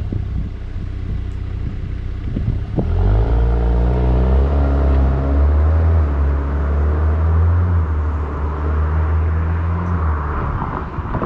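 VW Golf 8 R's turbocharged 2.0-litre four-cylinder through an Akrapovic exhaust, in Race mode: a low rumble, then a sharp click about three seconds in, after which the engine gets louder as the car accelerates, holding steady before easing off near the end.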